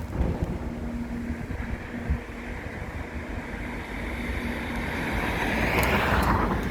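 Wind buffeting the microphone with a low rumble, under a faint steady hum. A rushing noise swells over several seconds and cuts off a little before the end, with a couple of clicks.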